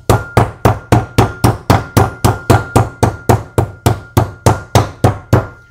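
Meat mallet pounding slices of pork chop flat for schnitzels, a fast even run of about twenty sharp blows, roughly four a second.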